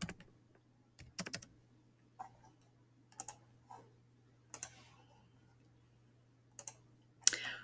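Scattered clicks from a computer keyboard and mouse: a few keystrokes and clicks, spaced out with short silences between them.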